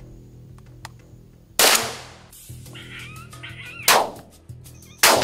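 Three gunshots, each a sharp crack with a decaying echo, the first about one and a half seconds in and the last two about a second apart. Between the first two shots comes a short, wavering animal cry.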